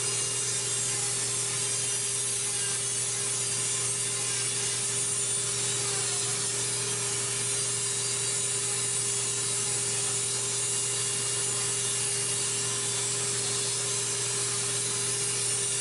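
Electric nail drill grinding down a toenail: a steady motor hum with an even, rasping hiss that does not change.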